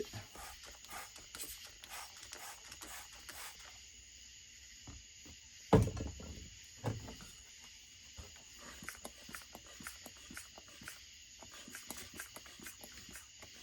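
Small clicks and taps of hands and tools working over a chainsaw during an air-leak search, with one sharp knock about six seconds in and a lighter one a second later, over a steady high hiss.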